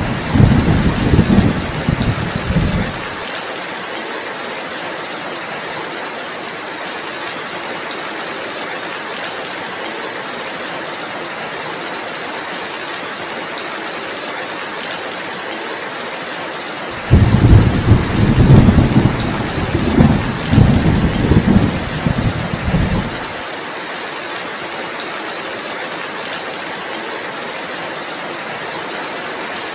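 Steady heavy rain, with a deep rumble of thunder that dies away about three seconds in, and a second rolling rumble that starts suddenly past the middle and lasts about six seconds.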